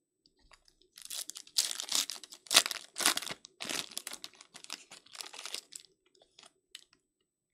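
Foil wrapper of a trading-card pack being torn open and crinkled by hand: a run of crackling tears starting about a second in, loudest near the middle, dying away after about five seconds.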